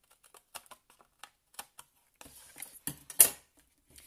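Paper card being handled and tidied on a craft mat: a run of light clicks and taps, then louder rustling, with one sharp swish of card about three seconds in.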